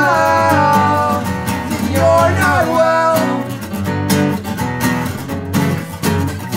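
Two acoustic guitars strummed in a pop punk song, with a male voice singing a held note that falls away near the start and another short phrase about two seconds in; after that the guitars strum on alone.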